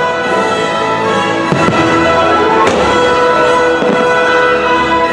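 Fireworks bangs, a few sharp reports a second or so apart, over the fireworks show's loud music soundtrack.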